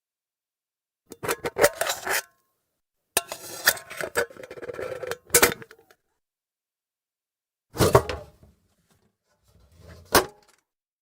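Tin lunch box being handled: its metal lid clattering, scraping and snapping shut in four separate bursts, the loudest a sharp metallic knock at about 5.5 and 8 seconds in, each with a short ring.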